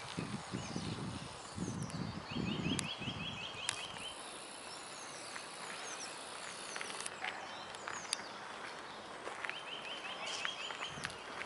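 Small songbirds singing and chirping, with a fast trill of repeated notes heard twice. Soft low thumps, like footsteps, come in the first few seconds and again near the end.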